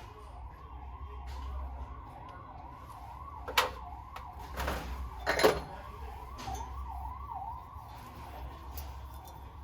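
Warbling siren-like electronic tone, sweeping up and down about three times a second without a break. Two sharp knocks, the loudest sounds, come about three and a half and five and a half seconds in, over a low steady hum.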